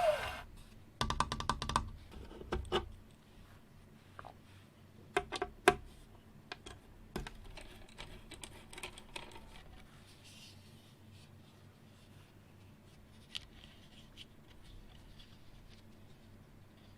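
Mechanical keyboard parts being handled during assembly: a quick run of small clicks about a second in, a few sharper knocks a few seconds later, then scattered faint clicks and taps.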